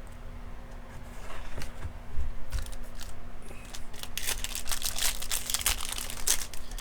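Baseball card pack wrapper crinkling and being torn open while cards are handled, a dense run of crackles starting about two and a half seconds in.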